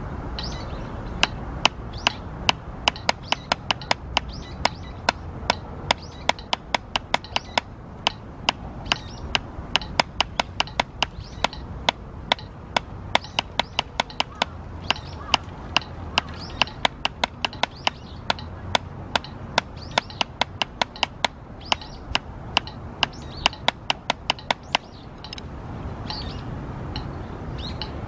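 Drumsticks tapping a drum practice pad in a steady stroke exercise, about three or four even taps a second, stopping about 25 s in. Birds chirp throughout.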